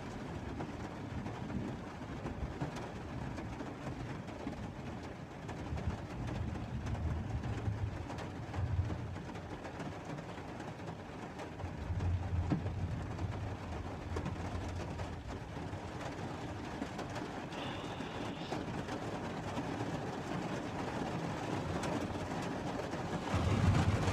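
Steady heavy rain falling, an even hiss. Low rumbles swell up twice, about six and twelve seconds in.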